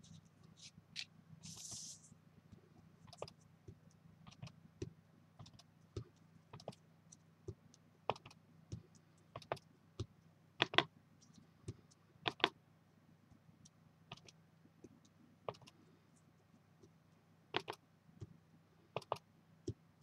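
Clear stamp on an acrylic block being inked on a stamp pad and pressed onto kraft cardstock, again and again: irregular light clicks and taps, the loudest a little past the middle. A brief hiss comes about two seconds in.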